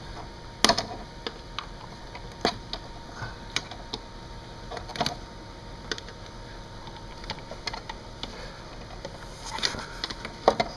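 Scattered sharp metal clicks and scrapes of screwdrivers prying at a small painted cap on a car's strut tower. One sharp click about half a second in, a few more spread through, and a quicker cluster of taps near the end.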